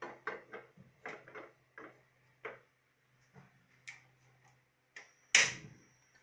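Kitchen things being handled: a string of light, irregular knocks and clicks, then one much louder clatter about five seconds in.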